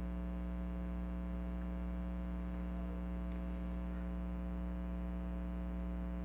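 A few faint clicks of a pick working the pins inside a pin-tumbler lock, under a steady electrical hum.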